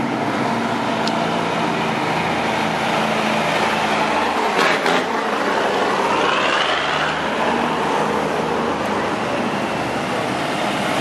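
Engines of cruise vehicles passing slowly on a street: a military cargo truck's engine at first, then a Corvette drives by, with a rising engine tone a little past halfway. A short loud burst of noise comes just before it.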